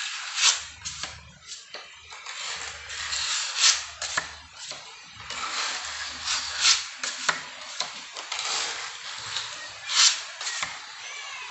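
Putty knife scraping wall putty across a painted wall in repeated strokes, with a sharp click about every three seconds as the blade is knocked against the hand-held board while being loaded.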